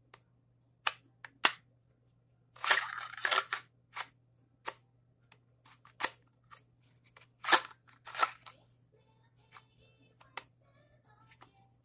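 A pistol being pushed into and drawn from a rigid Slimfit Ultra Guard appendix holster: a string of sharp clicks and short scraping rattles at uneven intervals, the loudest click about two-thirds of the way through. The clicks are the gun seating against the holster's retention.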